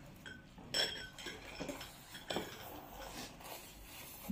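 Metal forks and spoons clinking and scraping against clear glass bowls while children eat noodles, a few separate clinks with short ringing tones.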